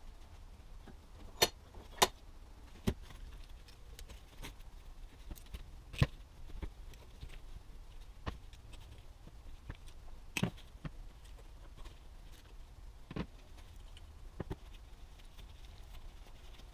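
Steel CV joint parts (balls, cage and inner hub) clinking and knocking as they are handled and set down, with sharp metallic clinks at irregular intervals. The loudest come in the first couple of seconds and again about six seconds in.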